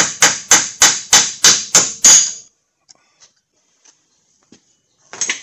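Hammer blows driving a wheel stud out of a car's front wheel hub, about three sharp strikes a second. The hammering stops about two seconds in, leaving only a few faint ticks.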